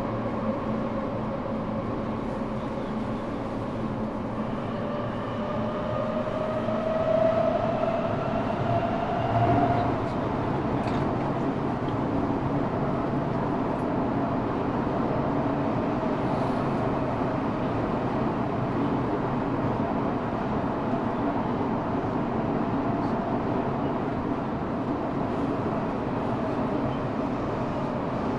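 Tokyo Metro 6000 series subway car under way, heard from inside the car: running noise with the high whine of its 7000-series-derived Mitsubishi three-level VVVF inverter, rising in pitch for several seconds as the train powers up, then steady running.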